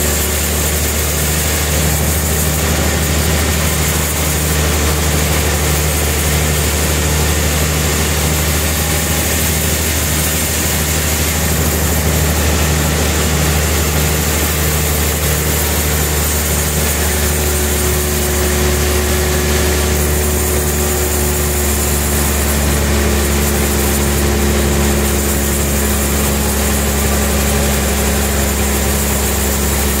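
Large band sawmill running steadily as its blade saws lengthwise through a suar (rain tree) log, an even machine drone with a regular low pulse.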